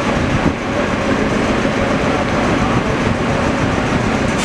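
Panama Canal electric towing locomotive (a 'mule') running along its track beside the lock while it tows a freighter. It makes a steady mechanical noise with a faint low hum running under it.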